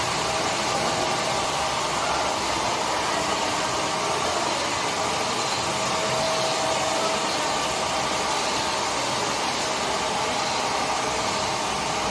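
Solar-powered multi-spindle charkha running: a steady whir from its motor and spinning spindles, with a faint steady tone.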